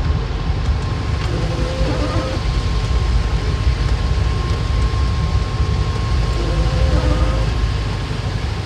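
Off-road vehicle driving slowly in low gear over a rough dirt trail, heard from inside: a steady deep engine and road rumble with a faint steady whine.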